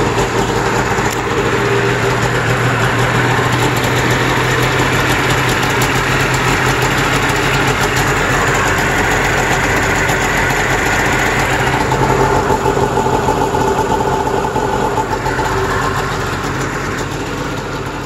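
A 2003 Arctic Cat Pantera snowmobile's 550cc two-stroke twin idles steadily. It is running again after sitting for years.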